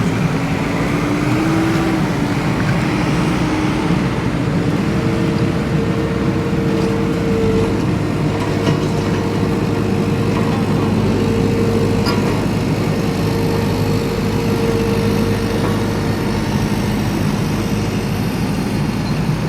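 Off-road vehicle's engine running steadily while driving, with a few held engine tones that shift slightly in pitch over continuous road and drive noise.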